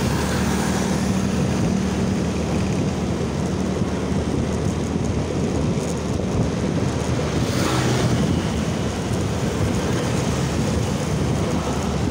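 Wind buffeting the microphone of a moving motor scooter, over the steady hum of its engine and the road. About eight seconds in, a brief louder whoosh swells and fades.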